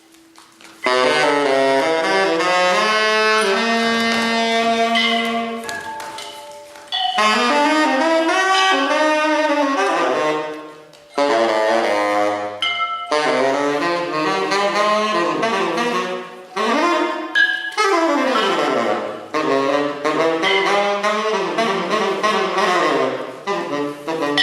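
Saxophone playing an improvised, jazz-like line of held notes and sliding pitches, in phrases broken by short pauses.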